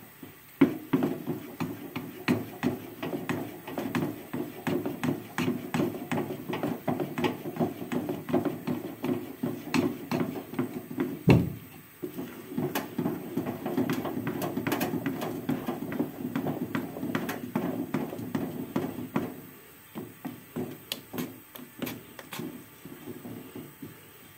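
A utensil stirring thick rice-flour porridge in a pot on the stove, a fast run of knocks and scrapes against the pot. The porridge is being stirred without stopping as it thickens, to smooth out lumps. The stirring breaks off briefly with one louder thump about 11 seconds in, then thins to occasional taps near the end.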